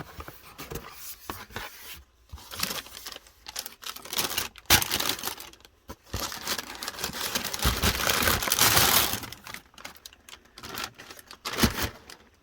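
Paper crinkling and rustling in irregular handfuls, with sharp knocks and scrapes of cardboard box handling; the longest, loudest rustle comes about halfway through.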